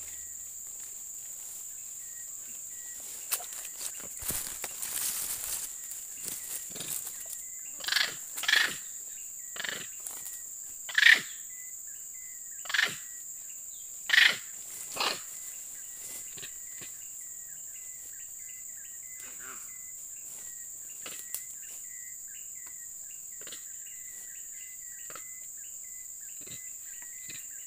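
Long-tailed macaque caught in a snare giving a run of about seven short, high calls in quick succession near the middle, over a steady high insect drone.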